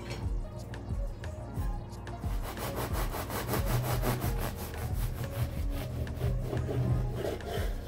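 Knife sawing back and forth through the crust of a baked loaf of bread, a quick run of rasping strokes starting about two seconds in, cutting down to a wooden board.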